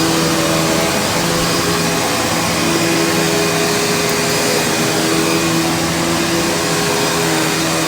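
Panasonic upright vacuum running steadily over carpet, its motor and brush roll humming with small shifts in pitch as it is pushed. The carpet is already clean, so no grit rattles up the hose.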